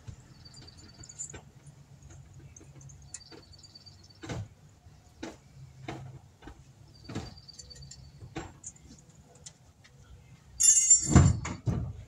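Tools being handled and rummaged through while a socket is searched for: scattered clicks and knocks, short runs of faint fast ticking, and a louder metallic clattering rattle about eleven seconds in.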